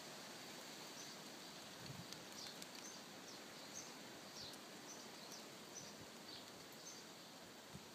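Faint, high peeping of ducklings: short chirps every half second or so over a steady outdoor hiss.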